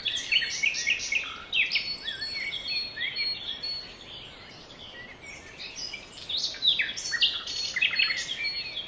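A chorus of small birds chirping and calling, many short overlapping calls, some sweeping downward in pitch, thinning out a little around the middle before growing busier again.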